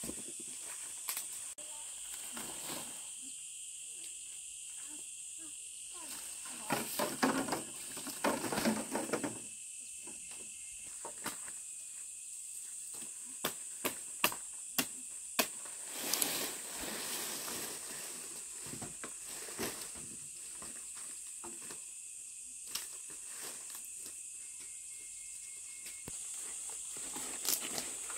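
Green palm fronds being stripped and handled, with bursts of leafy rustling and tearing and a run of sharp snaps near the middle. Under it runs a steady high drone of insects.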